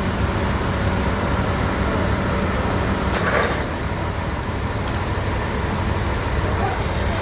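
Sawmill bandsaw machinery running with a steady low hum. There is a short clatter a little past three seconds in, and a high hiss comes in near the end.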